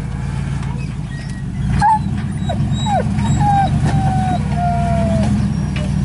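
Full-size Chevy pickup's engine running at low revs as the truck crawls over rocks, a little louder from about two seconds in. Over it come several short high-pitched squeals, some sliding down in pitch and some held level, between about two and five seconds in.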